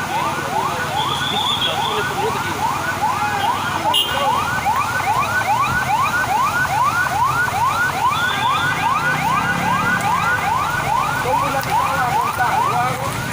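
Emergency vehicle siren sounding a fast yelp: rapid rising sweeps, about three a second, repeating steadily.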